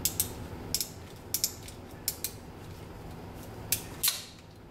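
Ratchet-type ring-sleeve crimping tool clicking as its handles are squeezed shut, crimping a small copper ring sleeve over two 1.6 mm wires at the ○ die mark. About nine sharp clicks come unevenly, several in close pairs, with a broader click about four seconds in.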